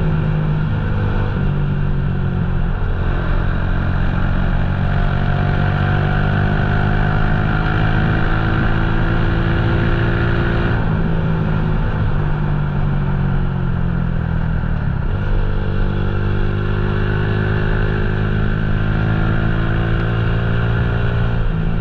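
Motorcycle engine running under way, its pitch climbing slowly and dropping sharply twice, about eleven and fifteen seconds in.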